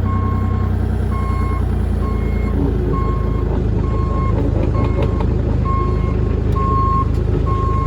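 Bobcat loader reversing: its backup alarm beeping a little more than once a second over the steady running of its diesel engine.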